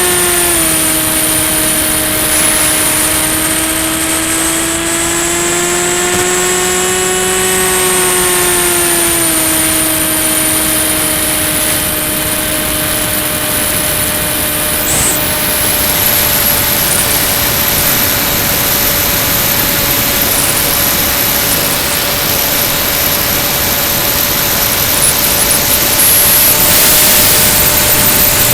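Electric motor and propeller of a Ranger EX FPV plane running in flight: a steady buzzing tone over rushing air that drops in pitch just after the start, creeps up, then drops again about nine seconds in as the throttle changes. A thin high whine runs above it.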